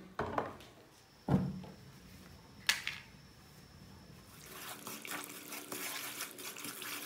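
A wok is set down on the cooktop with two low knocks, and a sharp click follows a little later. From about four and a half seconds in, the sugar-and-oil syrup starts to sizzle and bubble as it heats, and the sound grows.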